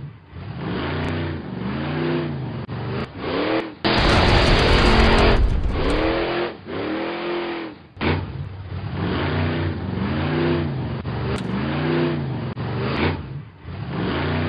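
Monster truck engine sound effect, revving up and falling back again and again, about once a second, with a loud burst of rushing noise lasting about two seconds, some four seconds in.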